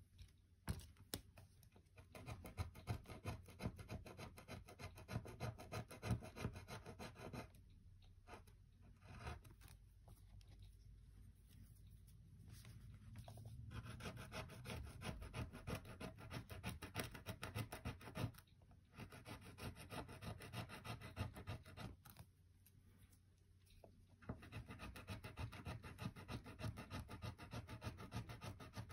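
Faint, rapid scratching and scraping on a tablet's casing or internals during disassembly, coming in bursts of several seconds with short pauses between them.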